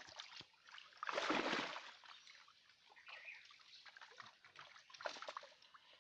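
Pond water splashing: one longer splash about a second in, followed by smaller splashes and trickling, with a few more near the end.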